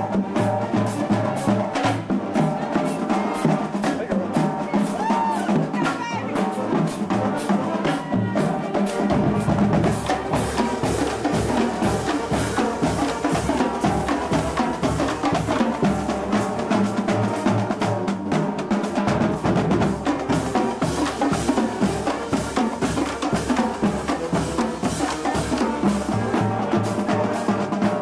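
Marching band drumline playing a parade cadence: rapid snare and tenor drum strokes over Pearl marching bass drums. The bass drums come in more heavily about nine seconds in.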